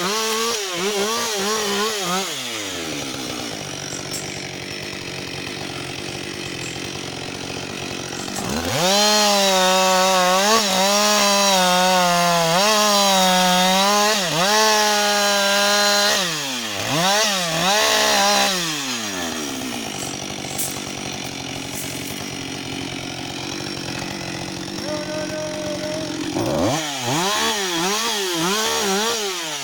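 Husqvarna 560 XP two-stroke chainsaw cutting through a log: it drops from full throttle to idle about two seconds in, revs back up and saws steadily for about seven seconds, surges and falls back to idle, then revs up again near the end to resume the cut.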